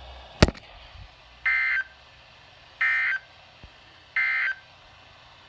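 Emergency Alert System end-of-message signal: three short, evenly spaced bursts of shrill warbling data tone, each about a third of a second, which mark the close of the alert. They follow a single sharp click about half a second in.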